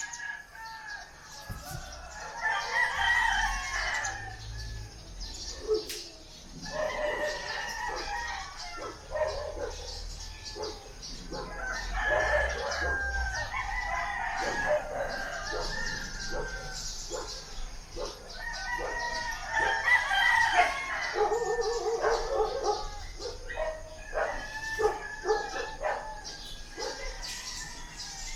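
Roosters crowing one after another, a long crow every few seconds, about five in all.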